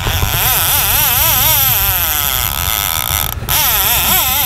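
A fishing reel's drag buzzing as a diving fish pulls line off it, the pitch wavering up and down, with a brief break about three and a half seconds in.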